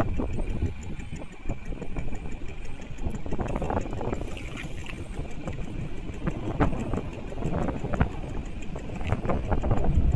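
Small boat engine running steadily over open water, with irregular knocks and splashes of waves against the hull.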